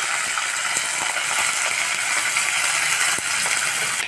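Chopped onions and curry leaves sizzling steadily in hot oil in a kadai, with a few light clicks of a spatula stirring them.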